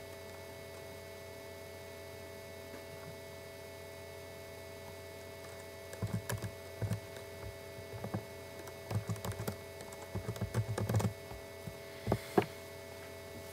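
Typing on a computer keyboard, starting about six seconds in: bursts of quick key clicks as a username and password are entered, with two louder clicks near the end. A steady faint hum runs underneath.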